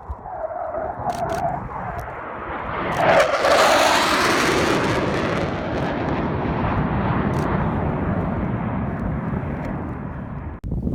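Panavia Tornado jet's twin RB199 engines on a flypast: the roar rises to a peak about three seconds in, with a falling tone as the jet passes, then settles into a steady rumble that cuts off suddenly near the end.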